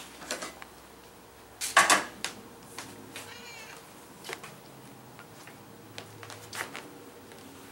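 A domestic cat meows once, briefly, about three seconds in. Scattered clicks and knocks sound around it, the loudest a sharp clatter just before two seconds.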